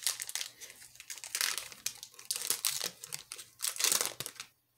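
Foil wrapper of a 2020 Panini Rookies & Stars football card pack crinkling and tearing as it is opened by hand, in irregular crackly bursts, loudest about a second and a half in and again near the end.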